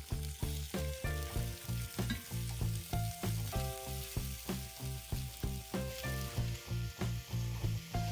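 Potatoes and mushrooms sizzling in a frying pan while a spatula stirs them, under background music with a steady beat and held bass notes.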